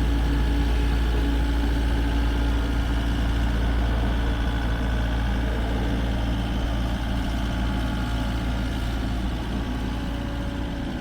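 Heavy diesel engine idling steadily with a deep low hum, easing off slightly near the end.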